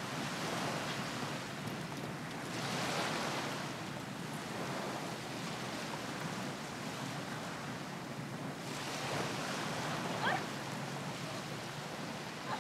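Ocean surf and wind on a beach: steady washing waves, with a short rising high squeak about ten seconds in.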